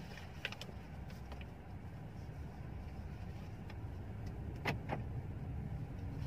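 Low, steady rumble of a Mercedes-Benz S-Class moving slowly, heard inside the cabin and growing slightly louder. A few light clicks come through, the loudest pair about four and a half seconds in.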